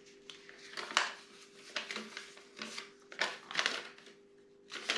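Paper and card packaging being handled and rustled in a series of short bursts as a small product box is unpacked, over a faint steady electrical hum.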